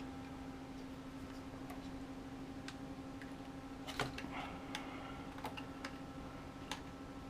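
Irregular small clicks and taps of hands handling the drone's plastic body and a cable, the loudest about four seconds in, over a steady low hum.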